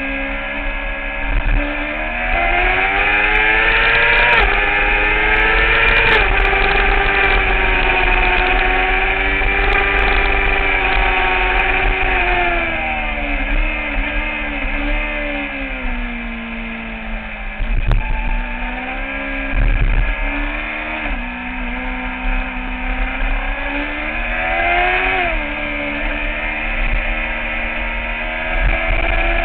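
2009 Kawasaki ZX-6R's inline-four engine at track speed, heard from a camera on the bike. The revs climb and fall again and again, and about halfway through the pitch drops in a few quick steps.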